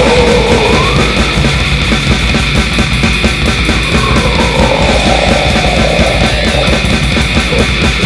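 Raw war metal song: distorted guitars over fast, dense drumming.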